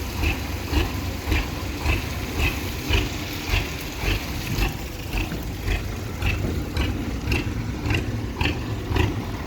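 Tractor engine running steadily, with a sharp regular clack repeating about twice a second.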